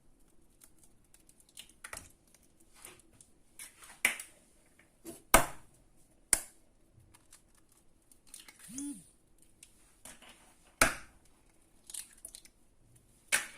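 Eggs being cracked into a bowl: a run of light taps and clicks with about five sharper knocks of shell on the bowl, spread unevenly.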